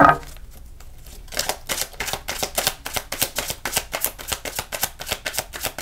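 A tarot deck being shuffled by hand: a quick run of soft card flicks and slaps, several a second, starting about a second in.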